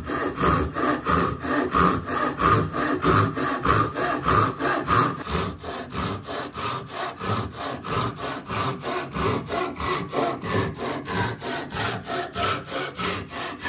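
Japanese pull saw cutting a piece of cedar held in a vise, in fast, even strokes at about three a second.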